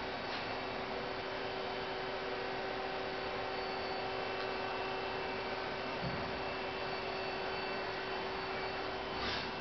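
Steady hum with a constant tone from a powered-up KIA SKT 15LMS CNC lathe (turning center), with a soft thump about six seconds in.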